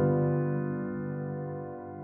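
Background music: a soft electric-piano chord struck just before this moment, held and slowly fading.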